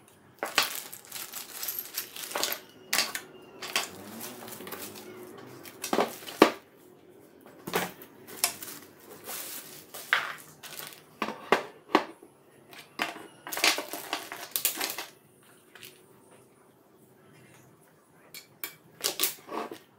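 Handling noise from unpacking an angle grinder stand: plastic bags crinkling and metal and plastic parts clattering and knocking as they are set down on a wooden table. The knocks come irregularly, with a quieter pause a few seconds before the end.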